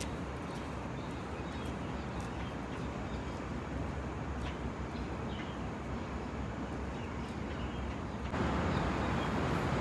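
Steady hum of distant road traffic, stepping up a little in level about eight seconds in.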